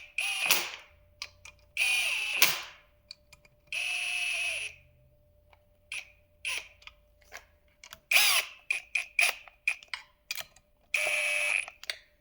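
A ratchet snugging down intake manifold bolts on a Duramax diesel. It runs in about five short bursts of roughly half a second to a second each, with single clicks in between.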